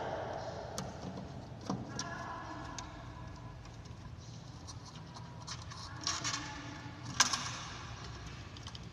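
Scattered light clicks and taps of a screwdriver and wire ends at a terminal block as fan-motor wires are fastened, the sharpest click about seven seconds in, over a faint steady background.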